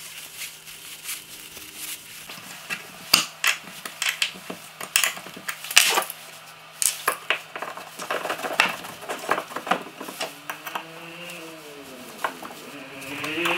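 Irregular clicks and clinks of metal hand tools and hardware handled on a wooden workbench: a hex key, screw inserts and a steel F-clamp being picked up, set down and fitted onto a piece of wood. A faint wavering tone comes in during the last few seconds.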